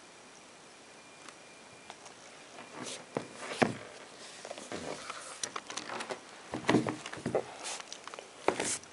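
Handling noise from a pair of basketball sneakers being turned over in the hands: irregular rubs, taps and knocks for the last six seconds or so, loudest a little past three seconds in and again near seven seconds.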